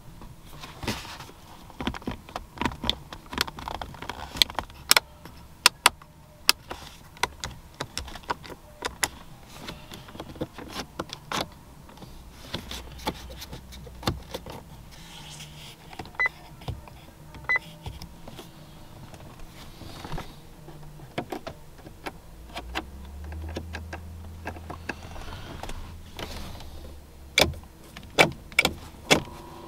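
Buttons and switches in a 2004 Cadillac XLR's cabin being pressed one after another: a long, irregular run of sharp clicks. A low hum joins in for a few seconds about three-quarters of the way through.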